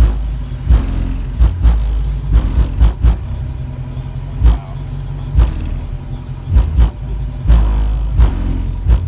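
Bass-heavy music played very loud through newly installed aftermarket trunk subwoofers, with deep sustained bass notes and sharp drum hits on the beat.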